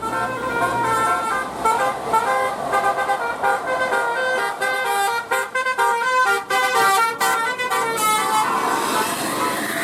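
Bus 'telolet basuri' multi-tone air horn playing a fast melody: short notes, several tones sounding together, changing pitch every fraction of a second.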